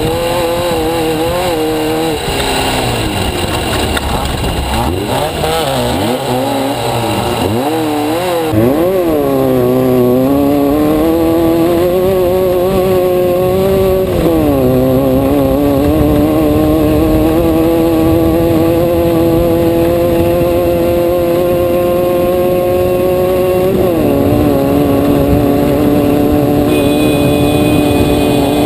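Racing vehicle engine heard from inside the vehicle. The revs rise and fall unevenly for the first several seconds, then the engine pulls hard at high revs. The pitch drops sharply three times: about a third of the way in, about halfway, and near the end.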